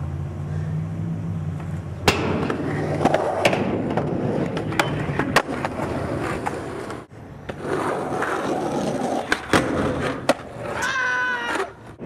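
Skateboard wheels rolling on concrete, with repeated sharp clacks of the board hitting the ground.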